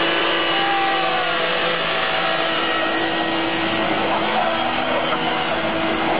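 SsangYong Korando 4x4 engine running under load off-road, a steady drone over tyre and ground noise, with a higher note that falls about a second in.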